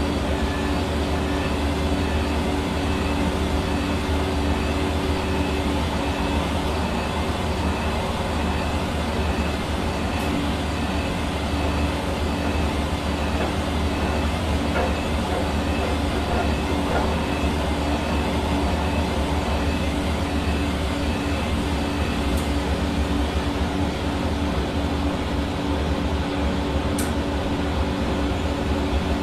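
Hair dryer running steadily: a constant rush of blown air over an even motor hum.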